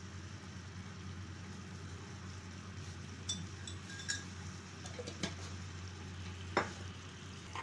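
A steady low hum with a few light clinks of a utensil against a pan or dish, the loudest near the end.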